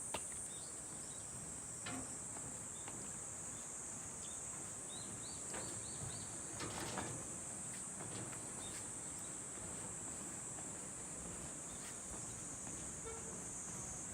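Insects buzzing steadily in an even, high-pitched drone, with a few faint clicks and short high chirps scattered through it.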